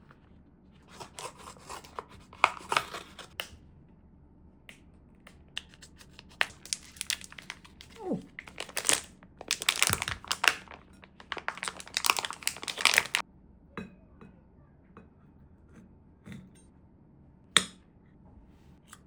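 Plastic food packaging being handled, crinkling and tearing in several bursts, then a sharp click near the end.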